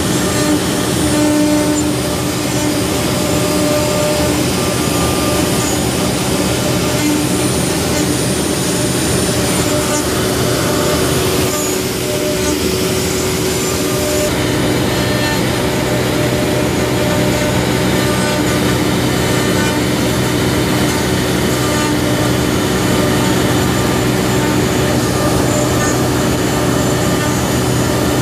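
CNC router spindle running steadily with a whine while its small carving bit mills a wooden block, roughing out a stepped 3D relief. The tone shifts slightly twice near the middle.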